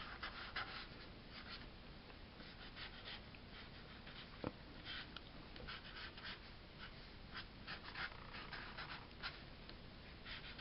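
Black Sharpie felt-tip marker scratching faintly over paper in many short, quick strokes as lines are drawn, with a single soft knock about four and a half seconds in.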